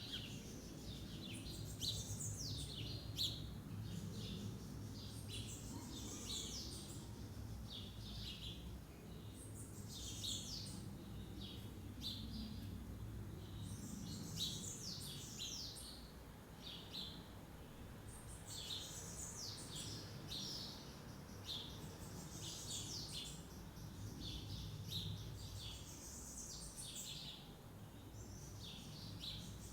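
Songbirds chirping and singing in rapid bouts of short, quick high notes, over a steady low background rumble.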